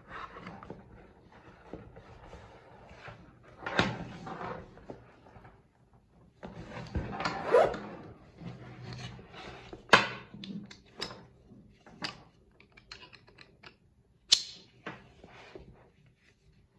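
Handling noise from a leather waist bag: leather and webbing strap rubbing and rustling, a zip being worked in a couple of longer swells, and scattered sharp clicks, the loudest about ten and fourteen seconds in.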